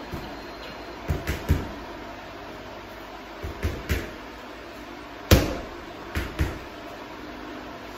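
Gloved punches landing on a hanging heavy punching bag, thrown in quick combinations: three about a second in, three more near four seconds, one hard single punch, the loudest, a little past five seconds, then a quick double.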